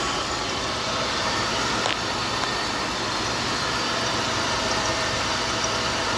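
2000 Buick LeSabre's 3.8-litre V6 running steadily at idle, with one brief click about two seconds in; the car is logging a random-misfire code (P0300) and a low mass-airflow sensor code (P0102).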